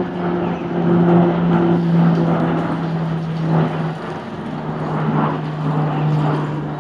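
Two Embraer EMB 314 Super Tucano single-engine turboprops flying over in formation: a steady propeller drone that drops in pitch about four seconds in.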